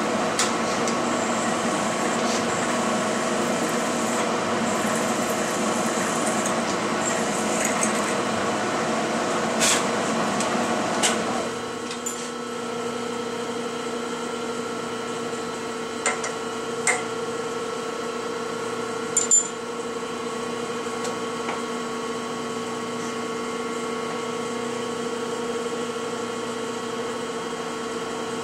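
Vertical milling machine running with a steady hum of several tones; about eleven seconds in the sound drops to a quieter, steadier hum. A few sharp metal clicks and clinks come from handling the tooling and vise.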